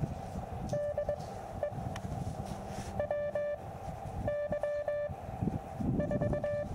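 Morse code (CW) from the Elecraft KX2 transceiver's speaker: a single steady tone keyed on and off in several short groups of dots and dashes, over low wind rumble on the microphone.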